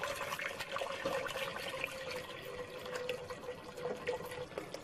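Water poured in a steady stream into a stainless steel stockpot, splashing into the shallow water already in the pot, with a faint steady tone under the splashing.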